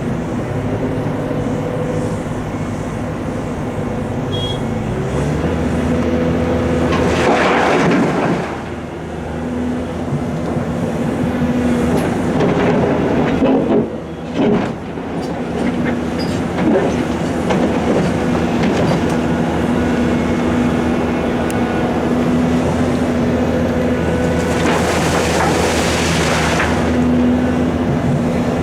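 Heavy quarry machinery working: the large diesel engines of the Volvo EC700 excavator and Perlini 655 dump truck run steadily under load. About 7 s in and again near the end there are longer rushing surges, and a sharp clank comes midway.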